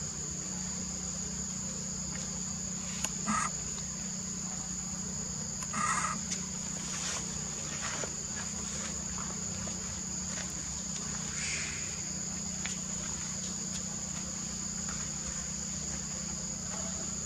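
Steady high-pitched chorus of insects with a low steady hum beneath it; two short calls stand out about three and six seconds in.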